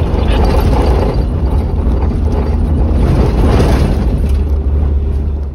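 Four-wheel-drive vehicle driving along a rough dirt track, heard from inside the cabin: loud, steady engine and road noise with a heavy low rumble.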